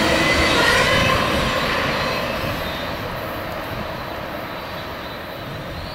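Double-stack container train's wheels rumbling on the rails and fading as the last cars pass and move away, with a faint wheel squeal that dies out in the first two seconds.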